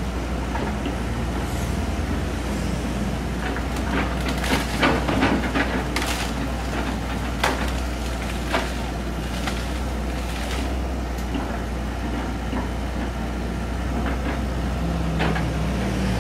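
Komatsu PC78US excavator's diesel engine running steadily while its bucket tears at a tree, with branches cracking and snapping, a flurry of them about four to six seconds in and more now and then after.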